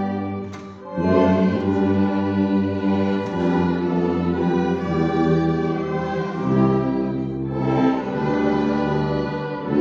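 Mixed ensemble of brass, strings and winds playing a slow hymn in long held chords, with a tuba on the bass line. A short breath break between phrases comes just under a second in, and the chords change every few seconds.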